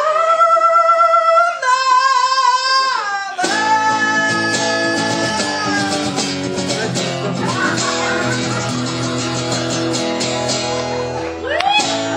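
A man sings over an acoustic guitar, holding two long wavering notes, then a final strummed acoustic guitar chord rings out about three seconds in and slowly fades, ending the song.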